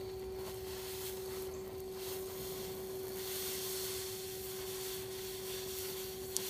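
Cobra DHC2000 oxy-acetylene torch flame hissing steadily while steel is gas-welded with a filler rod fed into the puddle, with a steady pure tone throughout.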